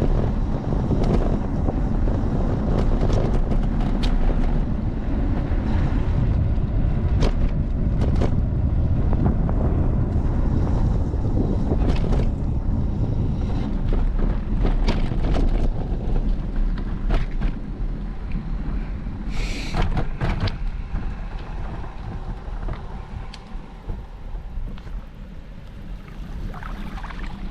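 Wind buffeting the microphone: a heavy, steady rumble with scattered clicks and knocks, easing off in the last few seconds.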